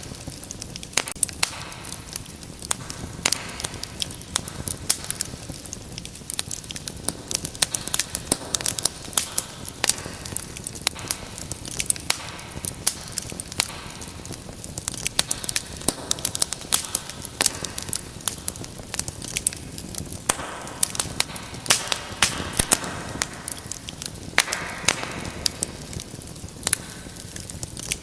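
Wood fire in a fireplace crackling, with frequent sharp, irregular pops and snaps over the low steady rush of the flames.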